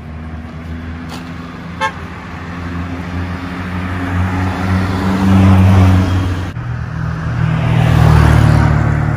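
Motor vehicles passing close by on a road: engine and tyre noise grows louder as one goes past about halfway through, breaks off suddenly, then swells again as a second vehicle passes near the end.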